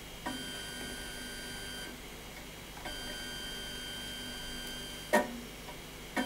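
Monoprice Select Mini 3D printer's extruder stepper motor feeding filament in two runs, about one and a half and two seconds long, each a steady whine of several tones that starts with a small click. Two sharp clicks follow near the end.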